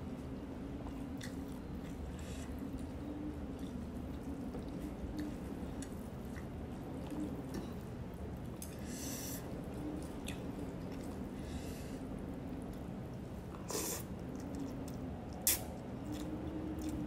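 Mouth noises of eating rice vermicelli noodles: chewing, with several short slurps as strands are sucked in, and one sharp click about three-quarters of the way through. A faint steady low hum runs underneath.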